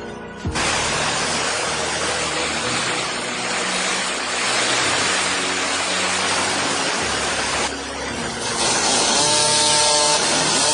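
A power tool runs loudly and steadily, starting about half a second in, easing off briefly near the end and then picking up again, over background music.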